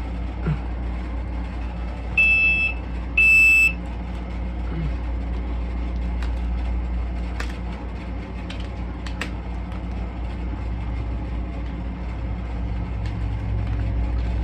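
Two short, high electronic beeps about a second apart, the second the louder, over a steady low hum. Later come a few faint clicks and rustles of a taped plastic record bag being worked open.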